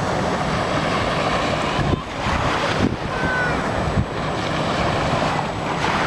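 Wind buffeting the microphone over small waves washing onto a sandy beach, a steady rushing noise.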